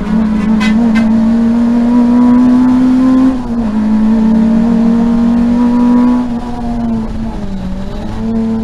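Peugeot 205 GTi race car's four-cylinder engine heard from inside the cockpit, pulling at full throttle with its pitch rising. The pitch drops abruptly about three seconds in at an upshift and climbs again, then falls away shortly after six seconds as the driver lifts off for the next corner.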